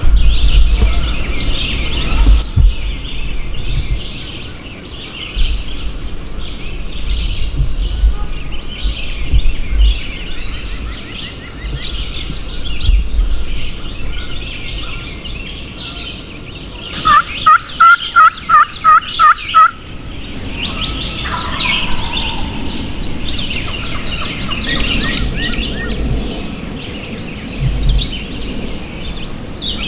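Wild turkey calling: about halfway through, a run of about eight loud, evenly spaced notes over a few seconds, with songbirds chirping throughout.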